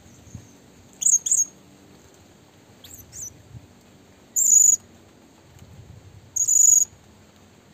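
High-pitched bird chirps: a quick double chirp about a second in, another pair near three seconds, then two longer notes at about four and a half and six and a half seconds.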